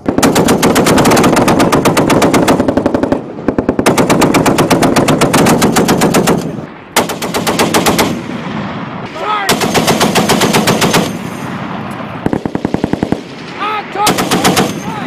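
M2 .50-calibre heavy machine guns firing long sustained bursts, loud and rapid, with brief pauses between bursts; shorter bursts follow in the second half.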